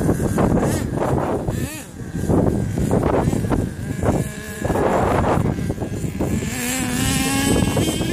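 Engine of an HPI Savage XL radio-controlled monster truck revving up and down as it drives, with a buzzing tone. It holds a steadier pitch near the end as it climbs, then steps higher.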